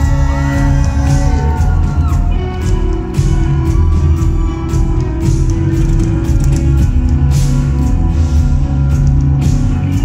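Live rock band playing in a large hall: drums, bass and guitar with sustained chords, and a sung vocal line in the first couple of seconds.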